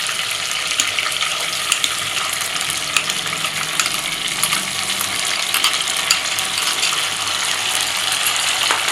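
Mutton and onion paste frying in hot oil in a pot: a steady sizzle with small crackles.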